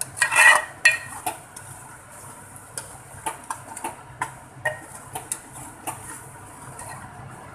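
Metal ladle stirring thick mutton curry in a metal pot, clinking and scraping against the pot's sides in irregular knocks, with the loudest clatter about half a second in.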